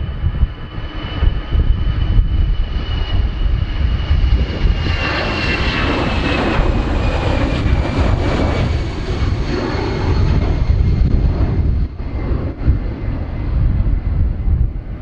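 Airbus A319's twin jet engines at takeoff thrust through lift-off and the climb-out: a loud, steady deep rumble with a high whine that slowly falls in pitch. A broad rushing sound swells to its loudest about halfway through as the jet passes, then eases off.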